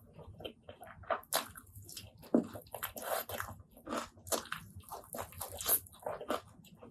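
Close-miked eating sounds: wet chewing and lip-smacking, an irregular run of short smacks and clicks.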